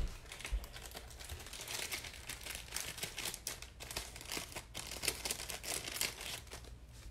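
Thin plastic packaging crinkling in irregular crackles as a pack of trading-card sleeves is handled.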